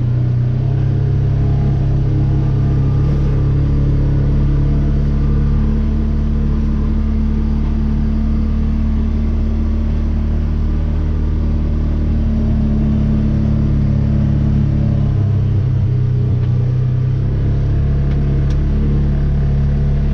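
Engine of the vehicle dragging a field to prepare a seedbed, running steadily under load, with a brief change in engine pitch about three quarters of the way through.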